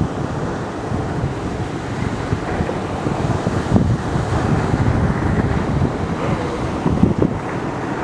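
Wind buffeting the microphone over the steady rumble of large surf waves breaking.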